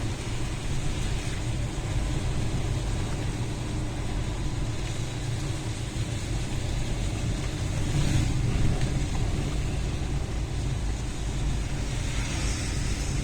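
Hurricane-force wind blowing, a steady low rumble of gusts on the microphone that surges about eight seconds in and again near the end.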